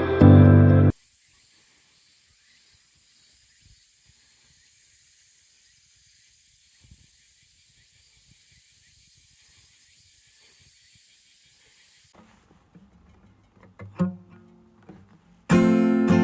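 Background music that cuts off about a second in, leaving a long, faint, steady high hiss with a few soft ticks. A sharp knock comes near the end, then strummed acoustic guitar music starts loud for the last second.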